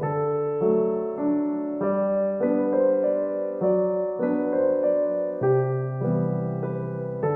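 Background piano music: a gentle melody of held notes over a bass line, changing about every half second.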